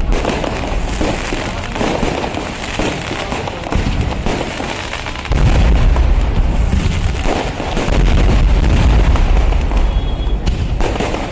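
Traditional Kerala temple fireworks going off in a dense, rapid barrage of bangs. Heavier deep booms come in about five seconds in and again near eight seconds.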